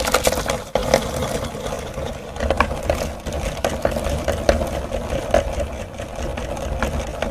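Electric meat grinder running with a steady motor hum while grinding a chocolate bar, with frequent sharp cracks and clicks as the chocolate is crushed.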